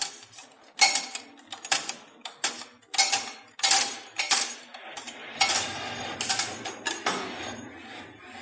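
CNC channel-letter bending machine working a strip of metal into a letter edge: a rapid series of sharp mechanical clacks, about one every 0.7 seconds, with a low hum coming in about five seconds in.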